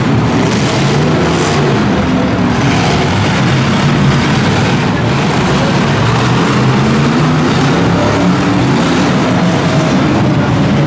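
Several V8 demolition-derby cars' engines running together, loud and continuous, their pitch wavering up and down as the drivers work the throttles.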